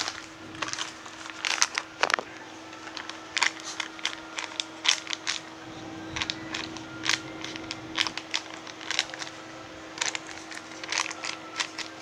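Irregular crinkling and clicking from squishy toys and their plastic wrappers being handled, some clicks sharp and loud, over a steady low hum.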